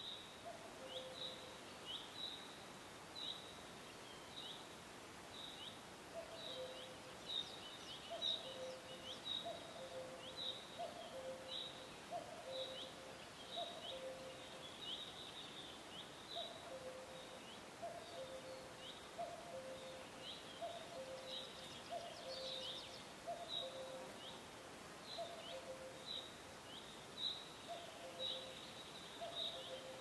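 Faint natural ambience of birds calling: short falling chirps repeating about twice a second, over a lower two-note call that repeats about once a second.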